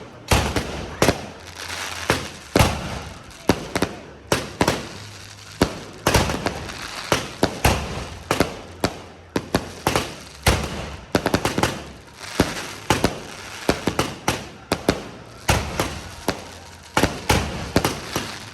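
Fireworks going off close by in rapid, irregular succession. Loud sharp bangs come several a second, with crackling between them.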